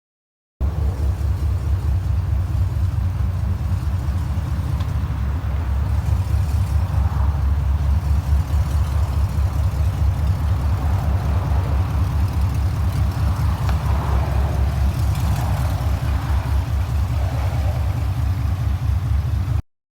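A truck engine idling with a steady, deep exhaust rumble made of rapid, even firing pulses. It starts abruptly and cuts off abruptly near the end.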